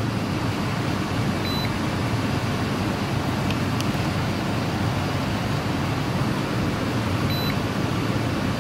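A steady low hum throughout, with two short high electronic beeps from an Innova 5610 scan tool's keypad as its buttons are pressed, one under two seconds in and one near the end.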